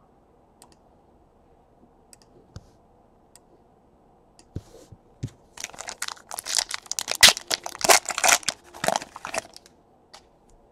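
Foil wrapper of a 2017 Panini Limited football card pack torn open and crinkled by hand: a few light clicks, then about four seconds of dense crackling and tearing from about halfway through.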